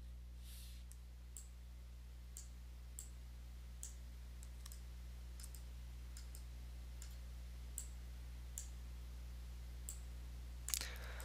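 Computer mouse clicking, single sharp clicks roughly every second, over a steady low electrical hum.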